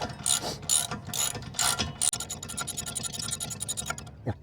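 Hand socket ratchet clicking as a loosened brake caliper bracket bolt is backed out, with slower clicks at first, then a fast run of clicks about halfway through.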